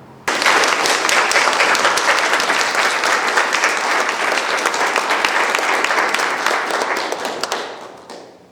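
Audience applause, starting suddenly and fading out near the end.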